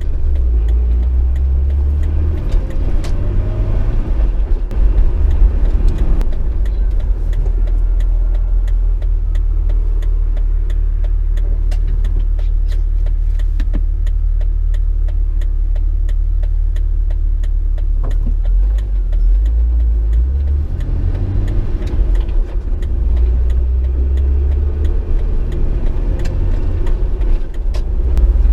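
2006 Jeep Wrangler TJ driving: a steady, heavy low rumble of engine and road, with the engine note rising as it speeds up a few seconds in and again near the end.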